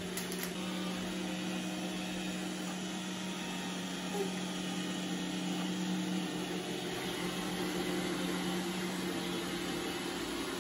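Roomba robot vacuum running across the floor: a steady motor and brush hum.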